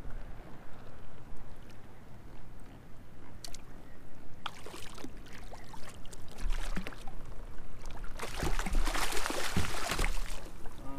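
Water splashing beside a kayak around a channel catfish tangled on a jug line, loudest for about two seconds near the end, after a few lighter splashes and knocks.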